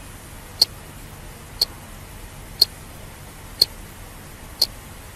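Countdown timer ticking once a second, five sharp ticks counting down the seconds of a one-minute timed typing drill, over a faint steady hum.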